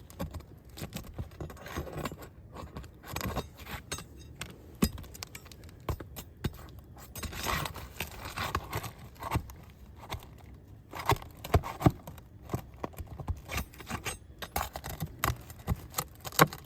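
Asphalt roof shingles being lifted and worked by hand: irregular scraping and many small clicks and taps as the shingle tabs and their nails are pulled up and pushed back down.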